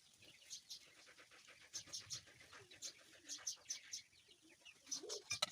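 Small birds chirping in quick short notes, a few a second, with a dove cooing low underneath, loudest near the end.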